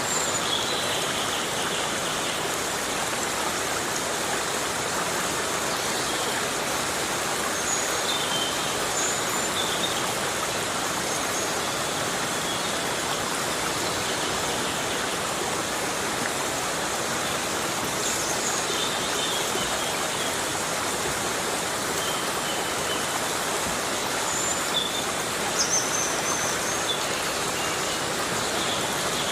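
Heavy rain falling steadily in a tropical rainforest, a dense even hiss, with a few short high chirps now and then.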